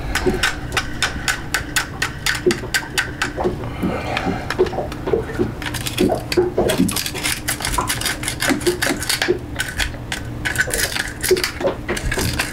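A plastic pick scraping and picking crusted marine growth off the paddlewheel of an Airmar tri-sensor, a boat's speed-through-water transducer, in quick scratchy clicks. The fouling is what has jammed the speed wheel.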